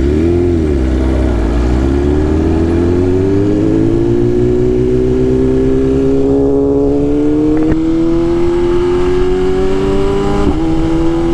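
BMW S1000RR inline-four sport bike engine running under throttle: the pitch wavers briefly, then climbs steadily as the bike accelerates, with two short breaks, the second with a small drop in pitch like a quick upshift.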